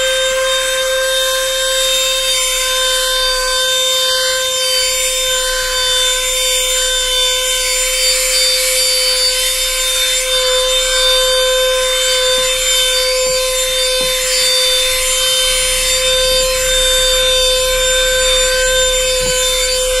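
Handheld portable vacuum cleaner running at full speed with a steady, high motor whine and rushing air, its brush nozzle rubbing over car floor carpet.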